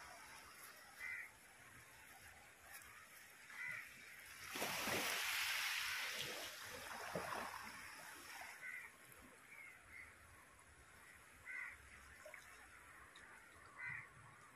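Sea waves washing in over rocks, with a louder rush of surf starting about four and a half seconds in and lasting about four seconds. A bird calls briefly several times.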